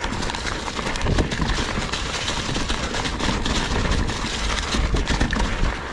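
Ibis Ripmo mountain bike riding fast over rocky trail: tyres crunching and the bike rattling and clattering over the rocks in a dense run of sharp knocks, over a steady low rumble.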